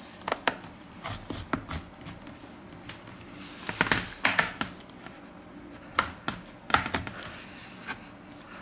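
Sharp plastic clicks and scrapes, a dozen or so at irregular intervals, as a plastic opening pick is worked along the seam of a Samsung Galaxy Tab A 2016 tablet's casing, prying the back cover loose.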